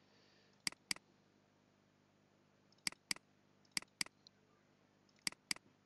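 Computer mouse button double-clicked four times, each a quick pair of sharp clicks, opening folder after folder.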